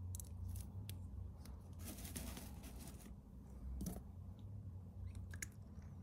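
Faint handling of a small plastic ink syringe and pen parts on a desk: light clicks and taps, with a brief rustle about two seconds in and a sharper click near four seconds, over a low steady hum.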